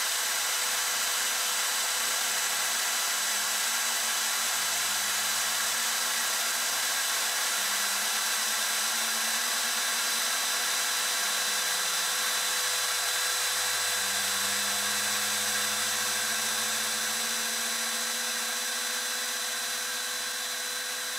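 CNC router spindle running steadily with a high whine as a small end mill cuts a circular rosette channel into a guitar top. Beneath it, a lower machine hum shifts in pitch every few seconds as the cutter travels around the circle, and the sound eases a little near the end.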